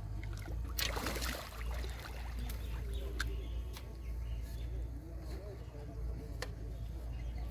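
Water splashing about a second in as a hooked fish is landed from the pond surface, followed by a few light clicks and knocks, over a low rumble of wind on the microphone.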